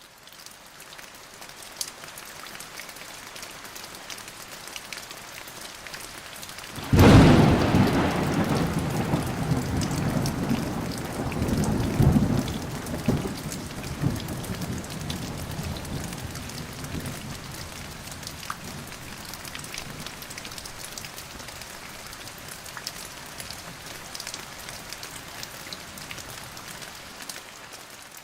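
Steady rain falling, with a loud thunderclap about seven seconds in whose rumble rolls on for several seconds, swells again a few seconds later, then fades back to the rain alone.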